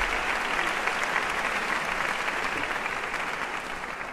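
Large audience applauding, the clapping slowly dying away near the end.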